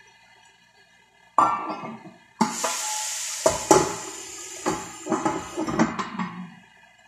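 A metal pan lid clatters, then ground chicken sizzles loudly in the hot pan for about three and a half seconds, broken by several knocks of lid and pan. The sizzle cuts off near the end.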